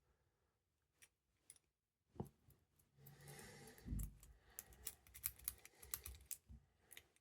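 Faint scraping and small metallic clicks of a thin rake cut from a drink can being worked in the keyway of a multi-pin dimple lock under tension, with the clicks coming closer together in the second half.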